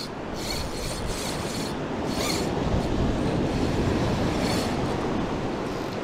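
Ocean surf surging and washing against rocks in a steady rush. A spinning reel being wound adds a few short bursts over it.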